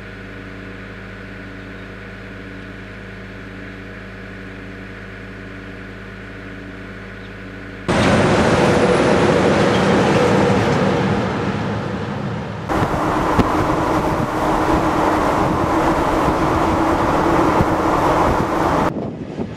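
A road-train prime mover's diesel engine idling steadily. After a sudden cut about eight seconds in, multi-trailer road trains pass close by at speed, loud with tyre, wind and engine noise. This passing sound breaks off abruptly near the end.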